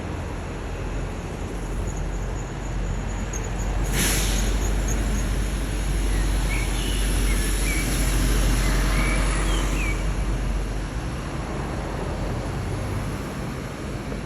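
Steady low rumble of city traffic with a nightingale singing faintly over it: a fast run of very high notes in the first few seconds, then short whistled phrases in the middle. About four seconds in, a brief sharp hiss cuts across, and a thinner high hiss lingers for several seconds after it.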